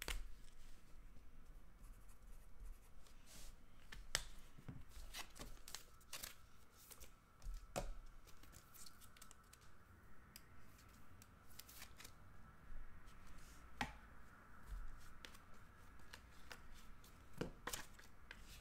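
Trading cards being handled: scattered soft clicks and taps at irregular intervals as cards are flicked through a stack and set down.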